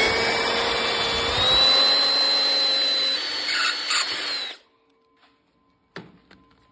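Handheld power drill boring a pilot hole through the welded-over pivot hole of a steel clutch pedal, its motor whining steadily and stepping up slightly in pitch about a second in, then stopping suddenly after about four and a half seconds. A single sharp knock follows about a second and a half later.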